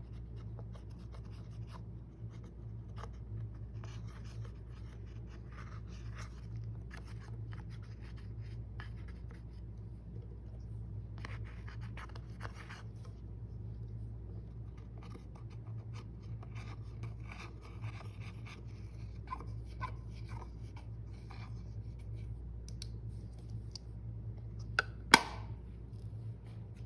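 Slime being mixed and squished by hand: irregular soft crackling and sticky clicking, with one sharp click near the end, over a low steady background hum.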